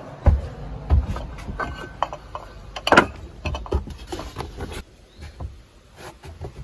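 A string of irregular knocks and clicks, with heavier thumps about a third of a second in, at one second and at three seconds, then quieter scattered clicks.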